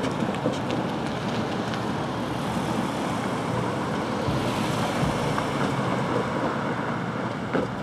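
Road traffic: cars driving across the railroad grade crossing, a steady rush of engine and tyre noise.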